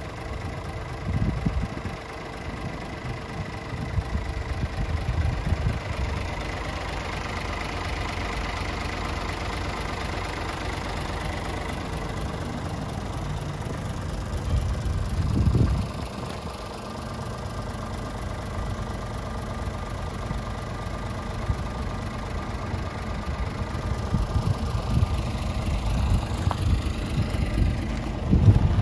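Scania R450 tractor unit's Euro 6 diesel engine idling steadily. Occasional low buffets hit the microphone, the loudest about halfway through and near the end.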